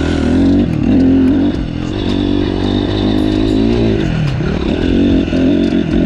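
Honda CRF250 four-stroke dirt bike engine being ridden, its revs rising and falling several times with the throttle, dropping low about four seconds in before picking up again.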